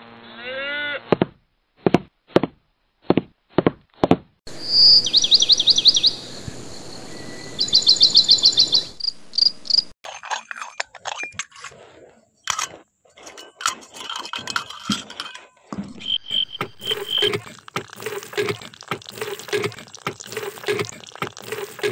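Rapid insect-like chirping trills over a steady hiss, followed by a busy run of small bird-like chirps and clicks. A few short clicks or knocks come a little before the trilling starts.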